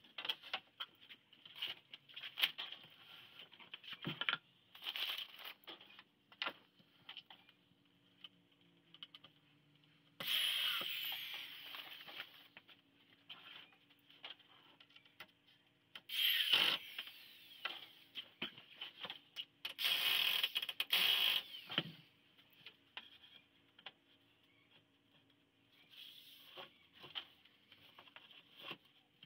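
Cordless drill running into wood in three short runs, about ten, sixteen and twenty seconds in, with knocks and clatter of parts and tools being handled in between.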